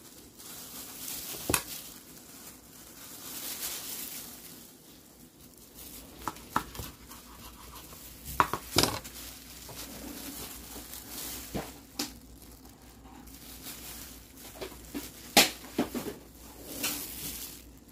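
Thin plastic food-prep gloves crinkling as hands handle and press a nori-wrapped kimbap, while a kitchen knife cuts through it, with scattered sharp knocks of the blade and hands on a wooden cutting board.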